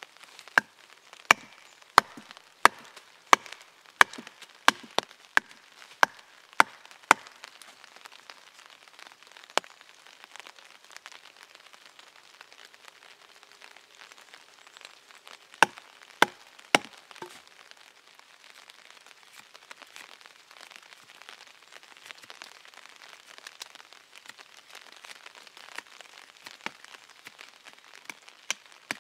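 Knife blade chopping into a green wooden stick laid on a log, carving a tent peg. A regular series of sharp knocks comes about one and a half a second for the first seven seconds, then three more in the middle, with a quiet crackle of the blade shaving wood in between.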